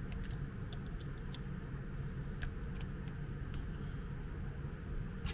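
A few light plastic clicks and taps as wire ends are pushed into an electrical plug and its housing is handled, over a steady low background hum.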